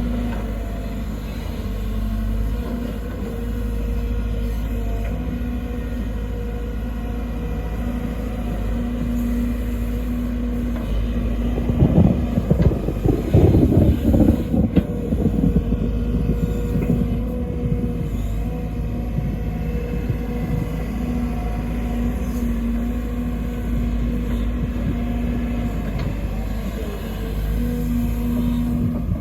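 Sumitomo SH210 hydraulic excavator's diesel engine running steadily at a constant pitch, with a few seconds of loud rattling and clatter about twelve seconds in.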